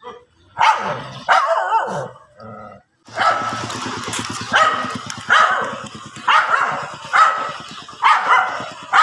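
Dogs barking aggressively at each other in a confrontation: two sharp barks in the first two seconds, then after a short pause repeated barking about once a second. A low, rough rumble runs underneath the barks from about three seconds in.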